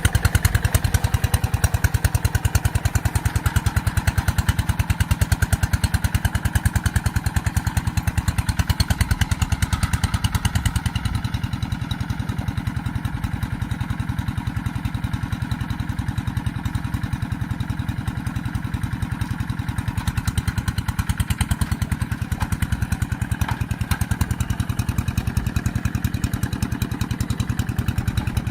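Rice-field tractor engine running steadily under work, with a fast, even chugging; it gets a little quieter about eleven seconds in.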